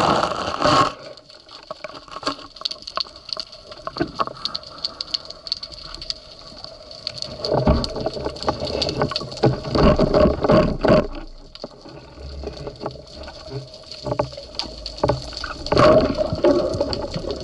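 Water sloshing and gurgling around a diver's camera, with many small clicks and several louder rushing surges.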